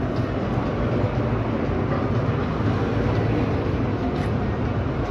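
Steady rumble of city street traffic, vehicle engines and tyres going by.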